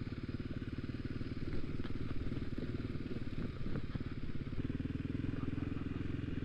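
Motorcycle engine running at low speed with a fast, even pulse, with a few faint clicks scattered through it; about four and a half seconds in the engine note changes and steadies.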